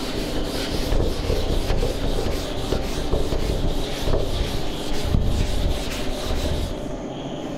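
Blackboard duster rubbing across a chalkboard, wiping off chalk in uneven strokes.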